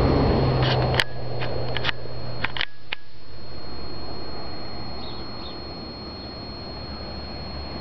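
Camcorder handling noise: a few sharp clicks and knocks in the first three seconds over a steady rushing hiss and low hum, with a faint high whine from the camera throughout.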